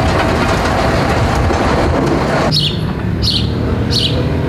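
A motor grader's diesel engine runs loud with a dense, noisy clatter. About two and a half seconds in, the sound cuts to a quieter, steady engine hum with a small bird chirping repeatedly, roughly every half second.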